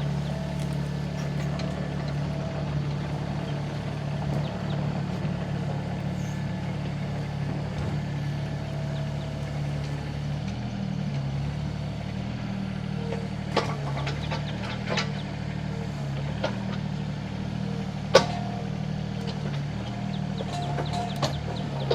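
SANY SY26U mini excavator's diesel engine running steadily, with a faint mid-pitched whine that comes and goes. From about 13 seconds in come several sharp knocks and clunks, the loudest about 18 seconds in.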